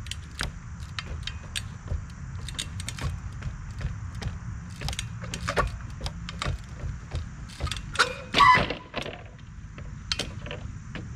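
24-inch Echo trials bike hopping and balancing on wooden pallets: a run of sharp clicks and knocks, with a louder squeak-like burst about eight seconds in. Low wind rumble on the microphone underneath.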